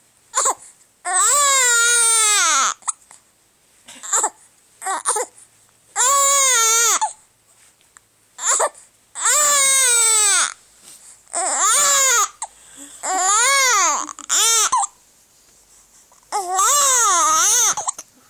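A baby crying hard: about six long, high-pitched wails, each rising then falling away, separated by short sharp catches that fit hiccups.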